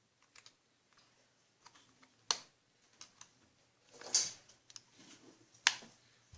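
Handling noise from small toy parts being picked over: scattered light clicks, a sharp click about two seconds in, a short scrape about four seconds in, and another sharp click near the end.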